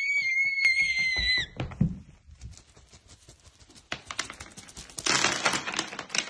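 A person's high-pitched scream, held steady and then cut off about a second and a half in, followed by scattered thumps and knocks and a burst of clatter near the end.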